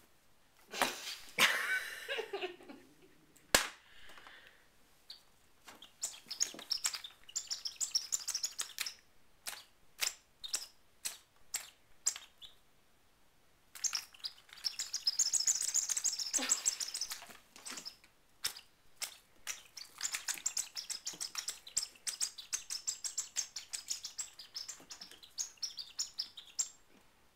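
Domestic cat making odd, rapid chirping and clicking noises in long runs, with a falling cry about a second in.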